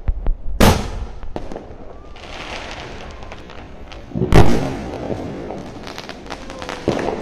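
A 3-inch aerial firework shell is launched with a sharp thump about half a second in. About four seconds in it bursts with a loud boom, the loudest sound here, followed by scattered crackles.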